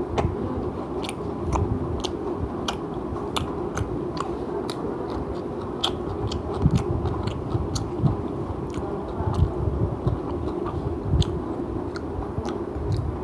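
A person chewing food close to the microphone, with many short, sharp mouth and teeth clicks at an uneven pace.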